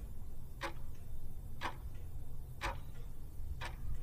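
Clock-ticking sound effect timing a quiz countdown, one tick each second, over a steady low hum.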